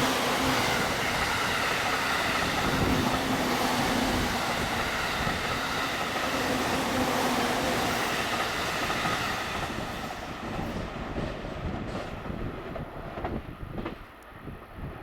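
Electric passenger train running past close by, loud for about ten seconds and then fading as it moves away, with a few wheel clacks near the end.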